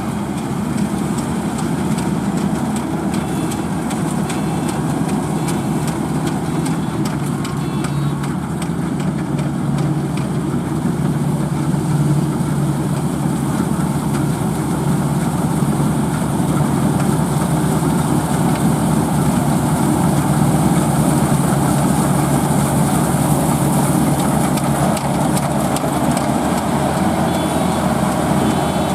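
Heavy diesel farm machinery running steadily, its engine noise dense and unbroken, a little louder in the second half.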